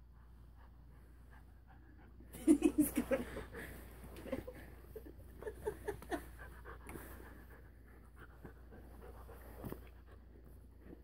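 Rottweiler puppy panting close to the microphone in quick, rapid breaths. It starts about two seconds in, loudest at first, then comes in shorter spells.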